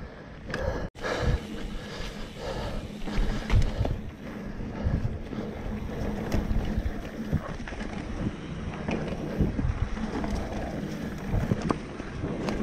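Mountain bike being ridden along a rooty dirt trail: tires rumbling and the bike rattling over bumps, with irregular knocks and wind buffeting the microphone.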